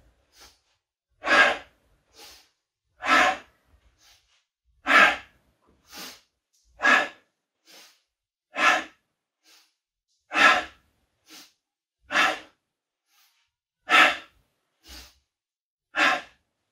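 A man breathing hard with the effort of repeated back extensions: a loud breath about every two seconds, nine in all, each with a fainter short breath between.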